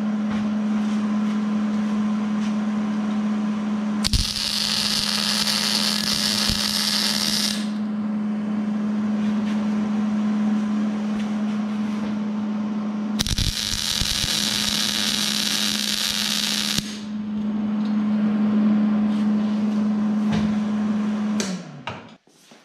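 Stick welding on steel: two crackling, hissing arc runs of about three and a half seconds each, over the welding machine's steady hum. The hum winds down and stops near the end as the machine is switched off.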